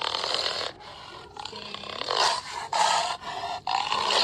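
A dog growling in a run of short, harsh bursts with brief breaks between them, a tiger-like growl.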